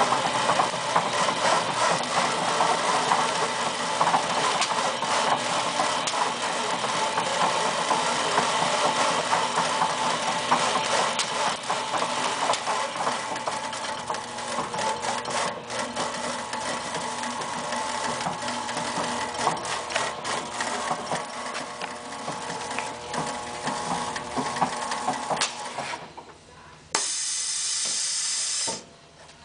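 Pallet stretch-wrapping machine running: the load turns while stretch film feeds onto it, a steady mechanical noise dense with small clicks. Near the end the machine noise drops away, and a loud high hiss comes in for about two seconds and stops suddenly.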